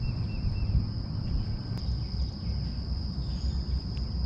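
Steady, high-pitched chorus of insects chirping, over a low fluctuating rumble, with a short run of quick chirps near the start.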